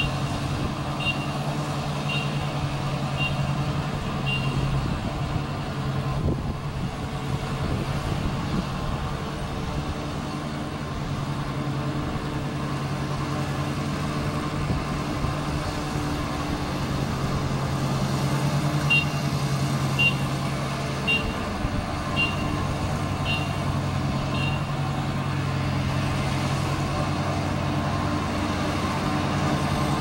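ISEKI combine harvester's engine running steadily at working speed. A warning beeper sounds about once a second, a few times near the start and again for about six beeps two-thirds of the way through.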